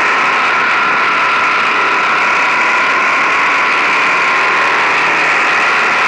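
Motorcycle cruising at a steady speed: the engine holds a steady pitch under a constant rush of wind and road noise.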